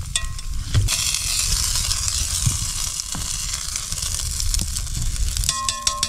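Enchiladas sizzling in a cast-iron Dutch oven set on hot campfire coals, a steady hiss, with a few clicks of metal tongs and a short metallic clink near the end.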